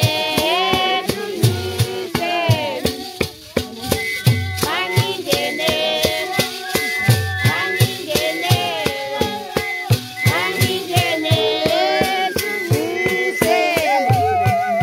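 Group singing for dancing, with sharp rattle-like percussion strokes about three a second and a low beat about every one and a half seconds; a wavering held voice enters near the end.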